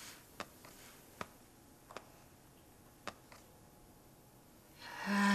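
A handful of soft, separate clicks from a laptop, a second or so apart, as it is used to browse. Near the end a voice rises.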